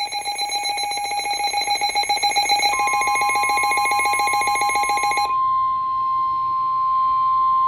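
Emergency Alert System attention signal: a steady two-tone alarm with a fast pulsing flutter. About two and a half seconds in, a single steady NOAA Weather Radio warning alarm tone joins it and carries on alone after the two-tone signal cuts off near five seconds. The tones announce an emergency alert, here a severe thunderstorm warning.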